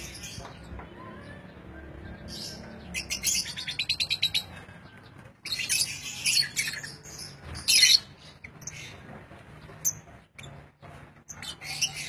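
Lovebirds chirping in sharp, high-pitched bursts: a quick chattering run of repeated notes about three seconds in, then louder calls around six and eight seconds and again near the end.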